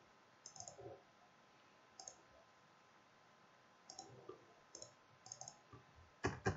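Faint computer mouse clicks, single and in quick pairs every second or so, loudest near the end.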